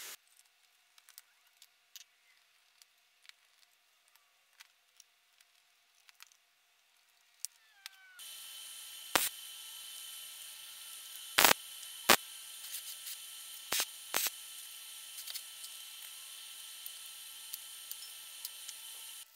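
Arc welding tacks on a square steel tube frame: several short, sharp crackling bursts over a steady hiss, the loudest between about 9 and 14 seconds in. Before that, a near-quiet stretch of small clicks from wires being handled.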